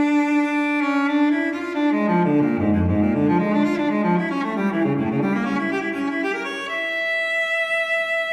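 Slow music played on bowed strings: a low cello or double bass line moving under sustained higher notes, with a long held high note from about seven seconds in.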